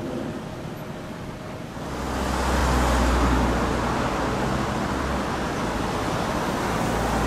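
Road traffic: a motor vehicle running close by, with a low engine rumble and road noise that grow louder about two seconds in and then hold steady.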